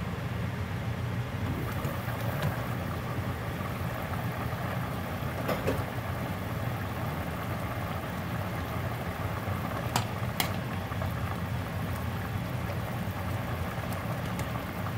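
Tomato-based pork stew bubbling at a boil in an uncovered stainless steel pot, over a steady low hum, with a sharp clink about five and a half seconds in and two more close together about ten seconds in.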